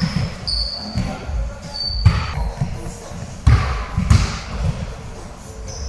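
A basketball bouncing and thudding on a sports-hall floor during play, with sneakers briefly squeaking a few times, echoing in the large hall.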